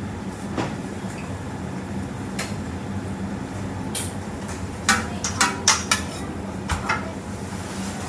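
Utensils clinking against dishes: a few scattered sharp clinks, then a quick run of louder ones about five to six seconds in, over a steady low hum.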